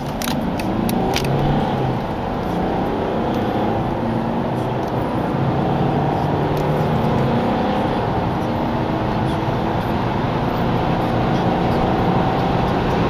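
Diesel car engine accelerating hard under full throttle, heard from inside the cabin, its pitch climbing and falling back at gear changes. There are a few clicks near the start.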